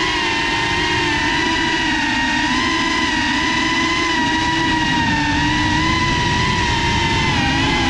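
Geprc FPV quadcopter's brushless motors and propellers whining steadily in flight, the pitch wavering slightly with the throttle.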